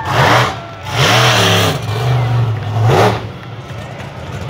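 Monster truck engine revving hard in repeated surges, the revs climbing and dropping about once a second, then easing to a lower run near the end.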